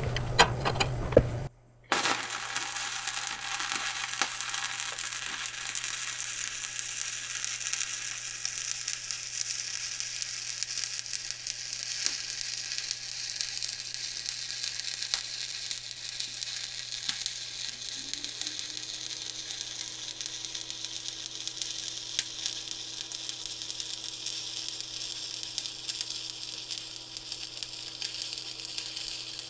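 Stick (SMAW) welding arc on a steel lap joint, struck about two seconds in and then burning steadily as an even crackle while the electrode is run along the joint from the crater of the previous bead. A steady low hum sits underneath.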